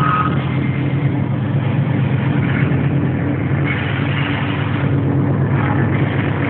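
Diesel locomotive engine running steadily with a low, even hum while the train rolls along the track, over a constant rush of running noise.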